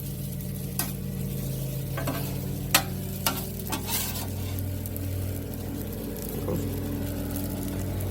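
Food sizzling and frying on a propane Blackstone flat-top griddle over a steady low hum, with a handful of sharp metal clicks from a utensil on the griddle plate in the first half.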